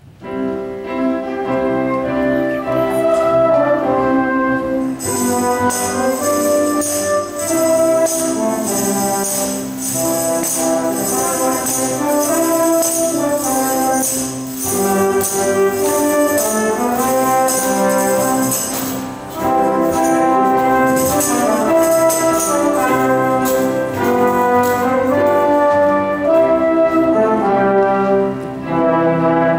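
Brassy Broadway-style orchestral music, with tambourine and other percussion joining about five seconds in.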